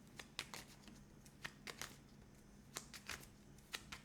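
Tarot cards being handled and shuffled: faint, irregular card flicks and light taps over a steady low hum.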